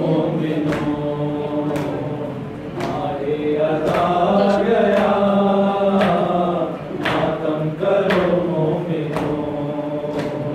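Men's voices chanting a Shia mourning lament (noha), with sharp hand slaps on the chest (matam) landing roughly once a second in time with it.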